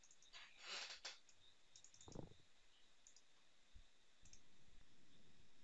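Near silence with a few faint computer mouse clicks in the first half, and a faint low hum coming in about two-thirds through.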